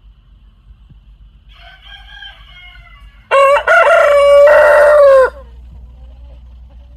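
A rooster crowing: one loud crow of about two seconds, starting about three seconds in, with a short catch near its start. A fainter crow comes a second or so before it. Both sound over a steady low rumble.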